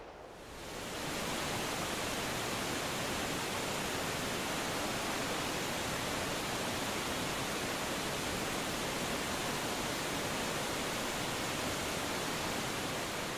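Waterfall: a steady rush of falling water that fades in over about the first second and then holds even.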